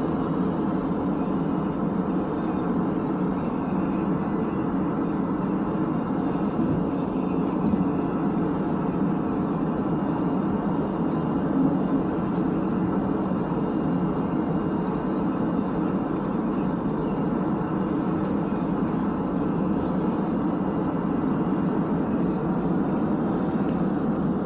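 Steady road noise heard inside a car driving along a highway: tyres on the pavement and the engine running, even and unbroken.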